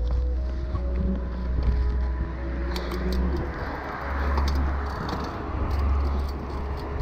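Wind buffeting a bike-mounted action camera's microphone as a Rose Soulfire downhill mountain bike rolls along a paved path. Tyre noise rises in the middle, and from about three seconds in the bike gives scattered light clicks and rattles.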